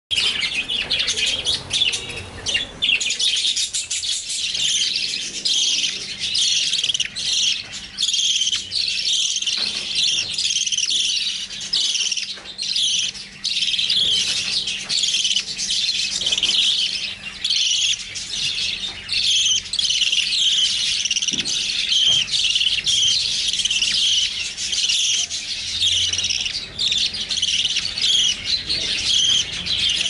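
Baby lovebirds calling: a fast, almost unbroken stream of high-pitched chirps.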